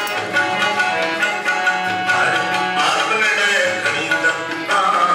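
Indian music with tabla drumming under melodic instrument lines that include some gliding notes.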